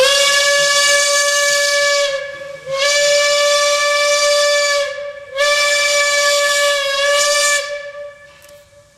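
Steam whistle of a 1923 Porter 0-4-0 steam locomotive blowing three long, loud blasts of one steady pitch, each about two seconds with short gaps between, the last trailing off faintly.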